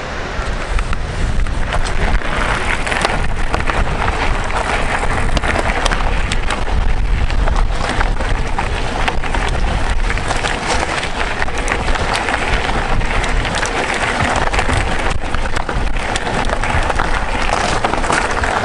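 Mountain bike rolling over a rough trail: a steady crackle of tyres on stones and grit, with many small rattles and clicks, over a low rumble.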